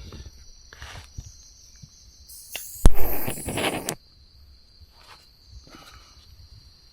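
Camp cooking gear being handled: soft rustles and small clicks, with a sharp knock about three seconds in followed by a second of clatter. A steady high insect drone runs underneath.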